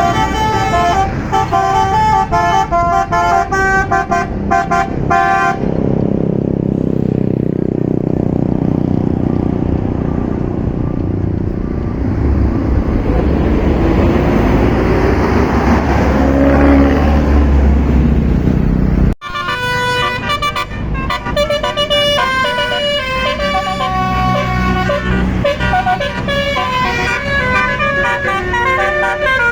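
Tour bus Basuri telolet horn playing a melody of quick stepped notes, then a deep bus engine revving with a rising pitch. About two-thirds of the way through the sound cuts off abruptly and the horn melody starts again.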